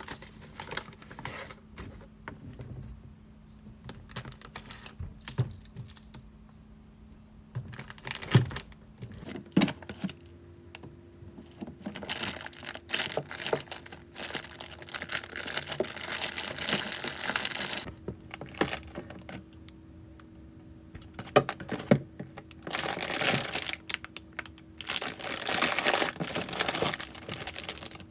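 Hands handling things at close range: irregular light clicks and taps with rustling and crinkling, busiest in the second half, over a faint steady hum.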